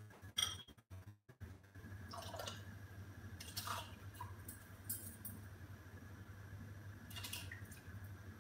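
Soaked lentils tipped from a bowl into boiling water in a pressure cooker: faint splashes and a few light clinks of bowl and utensil against the pot, the sharpest click about half a second in, over a steady low hum.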